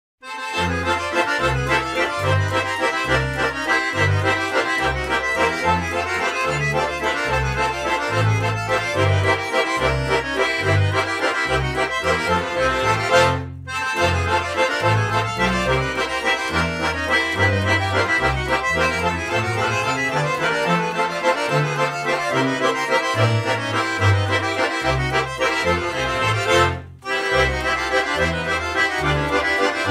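Traditional accordion music with a rhythmic, alternating bass line. The playing breaks off briefly twice, about halfway through and near the end.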